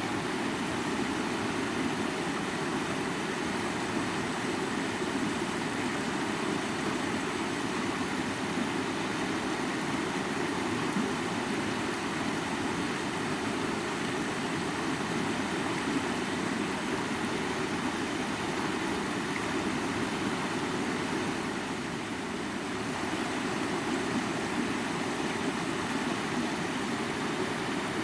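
A mountain river flowing: a steady rush of water, dipping slightly for a moment about three quarters of the way through.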